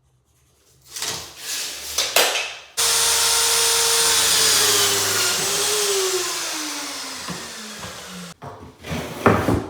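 Electric mitre saw cutting MDF skirting board: the motor runs loud and steady, then its pitch falls as it winds down before cutting off. A few knocks of the board being handled come before and after.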